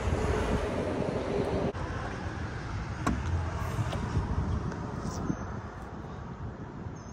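Steady low rumble of a car with wind noise on the microphone, fading slowly, with a few faint clicks about three and five seconds in.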